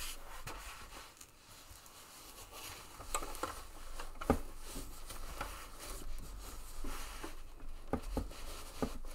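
Layers of fabric and foam rustling and shifting as they are handled and fed under a sewing machine's presser foot. Scattered light clicks and taps come through, the sharpest a little over four seconds in.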